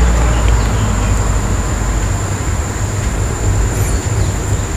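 Steady rumbling background noise with a thin, high, constant whine.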